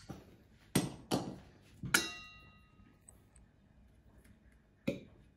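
Metal spoon clinking against mixing bowls as shrimp is scraped into the filling: two sharp knocks, then a clink about two seconds in that rings briefly. A softer knock comes near the end.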